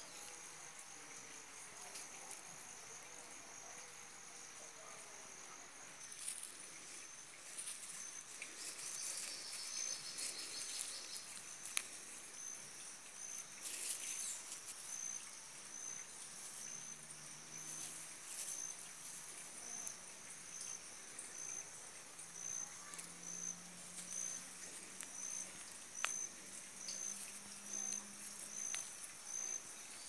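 Insects trilling with a faint, high, thin note that turns into regular chirps about once a second in the second half. A few sharp clicks stand out now and then.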